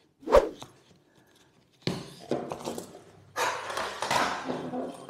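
Handling noises as a kayak paddle shaft is pushed through the loops on the side of a nylon backpack: a sharp knock about a third of a second in, then from about two seconds in irregular scraping and rustling of shaft and fabric.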